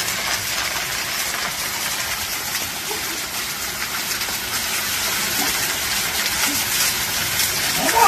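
A small waterfall pouring down and splashing onto rocks and a person standing beneath it: a steady rushing hiss.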